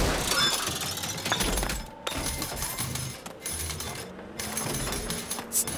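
Cartoon sound effects of a soda vending machine clattering and clinking as a glass soda bottle shoots out of it, in several bursts with short breaks between them.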